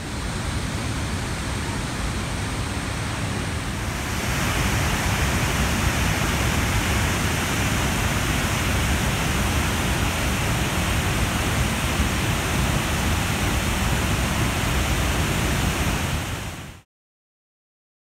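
Harajiri Falls, a broad curtain waterfall about 20 m high, rushing steadily. The sound gets louder and brighter about four seconds in, then cuts off suddenly near the end.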